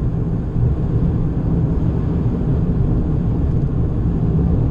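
Steady low rumble heard inside the cabin of a BMW 320i cruising at highway speed: tyre and road noise with engine hum, even throughout with no revving.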